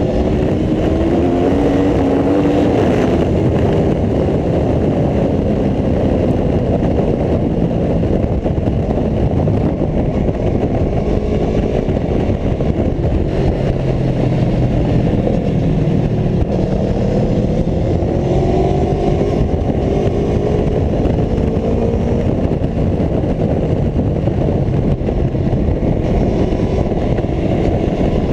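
Aprilia Tuono V4 1100 RR motorcycle's V4 engine running hard at speed on track, its pitch climbing and dropping as it accelerates and backs off, under a steady loud rush of wind noise.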